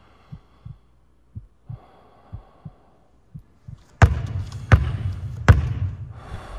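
Heartbeat sound effect: soft, low double thumps about once a second over a faint hum. About four seconds in, a sudden loud hit starts a louder, dense stretch with two sharp cracks under a second apart.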